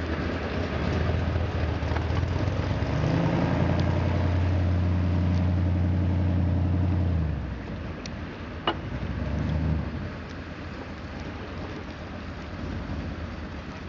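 Outboard motor of a 1987 Bass Tracker running as the boat pulls away, a steady low hum that grows louder about three seconds in and drops away suddenly about seven seconds in, swells briefly near ten seconds, then runs on quieter. One sharp click a little after eight seconds.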